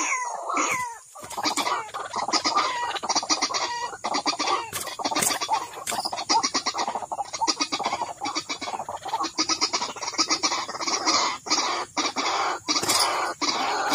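White-breasted waterhen (ruak-ruak) calls: continuous runs of fast, harsh repeated notes, the bird's chattering territorial call used to lure it.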